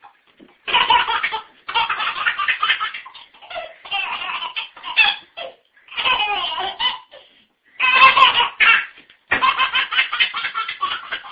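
A baby laughing hard in repeated bouts of belly laughs, with short pauses between them.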